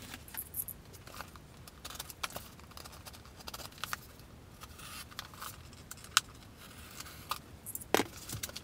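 Knife cutting open a cardboard shipping box and its flaps being handled: scattered light clicks, taps and brief scrapes, with a sharper click about six seconds in and another about eight seconds in.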